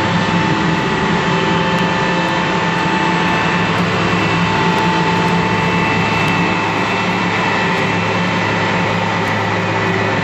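New Holland combine harvester running steadily as it drives along a swath: a constant diesel engine drone with steady high whines from its drives.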